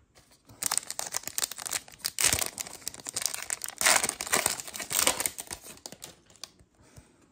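Foil wrapper of a Panini Prizm basketball card pack crinkling as it is handled and torn open. The crackling starts about half a second in, is loudest about two and four seconds in, and dies away shortly before the end.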